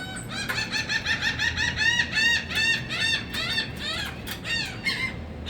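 A flock of birds calling at once: a dense run of short, repeated high calls, several a second, overlapping one another.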